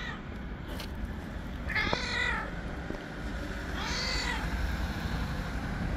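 Stray white cat giving two angry, drawn-out meows, each rising and falling in pitch, about two seconds apart: the first about two seconds in, the second about four seconds in.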